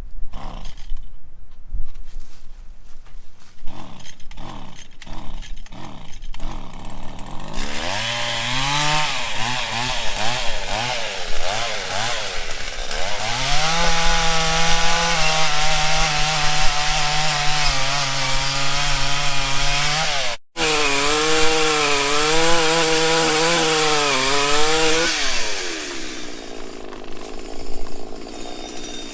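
Two-stroke chainsaw blipped in several short revs, then held at high revs cutting wood, its pitch wavering under load, with a momentary break partway through. Near the end it falls back toward idle, then revs up again.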